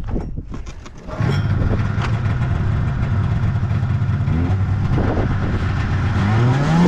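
Snowmobile engine that gets much louder about a second in and then runs steadily, its pitch rising twice as it revs.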